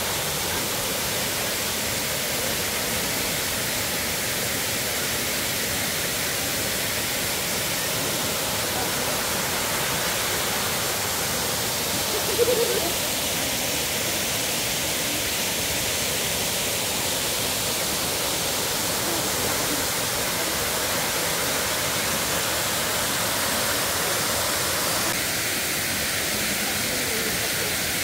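Waterfall rushing with a steady, even wash of falling water. A brief louder sound cuts in about halfway through.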